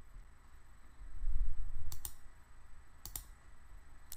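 A few sharp computer mouse clicks, about two seconds in and again a second later, as menu items and buttons are selected. A low rumble sits under the first second of them.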